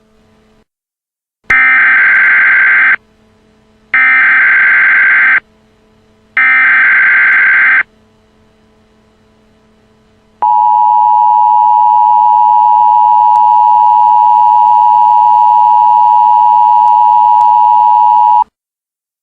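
Emergency Alert System signal: three short screeching digital data bursts (the SAME header), about a second apart, followed by the steady two-tone EAS attention signal held for about eight seconds, which cuts off suddenly.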